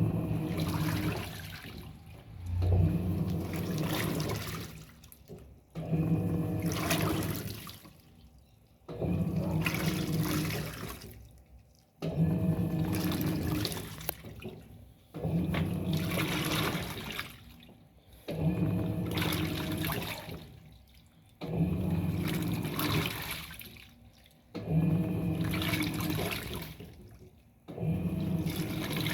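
Electrolux Turbo Economia LTD06 top-load washing machine agitating a load in water. Each stroke of the motor and agitator comes on suddenly with a low hum and churning water, then fades, about every three seconds.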